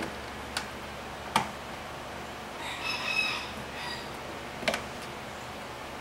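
Three sharp clicks and knocks as a fuel pump relay and its wiring connector are handled and plugged back in, the loudest about a second and a half in. Between them, a high-pitched bird call of about a second.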